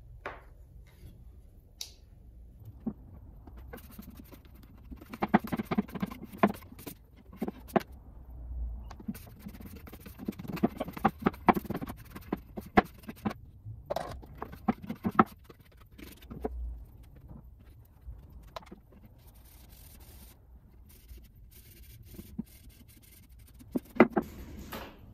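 Walnut pieces being worked by hand on a plywood workbench: irregular scraping and rubbing strokes of an applicator pad and cloth spreading an oil finish, mixed with short clicks and knocks as the wood is handled and set down.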